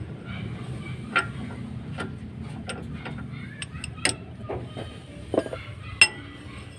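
Hand tools clinking and tapping on metal while parts are unbolted under a truck: about ten irregular sharp clinks, the loudest, about six seconds in, ringing briefly, over a steady low hum.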